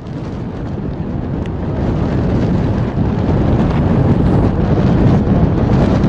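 Loud wind buffeting a compact camera's built-in microphone: a dense, low rumbling noise that builds over the first two seconds and then holds steady.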